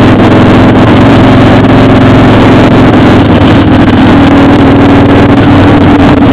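Motorcycle engine running loud and steady at cruising speed, heard from the rider's seat, with wind rushing over the bike.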